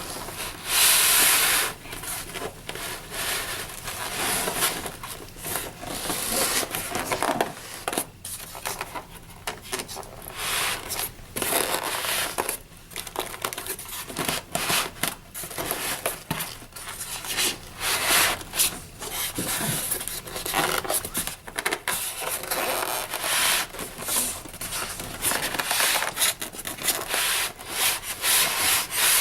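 Styrofoam packing and cardboard rubbing and scraping against each other in irregular strokes as packing is worked out of a box.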